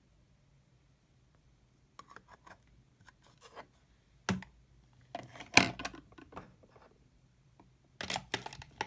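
Plastic makeup packaging being handled: a run of sharp clicks and short crinkles that starts about two seconds in, with the loudest cluster in the middle and a few more clicks near the end.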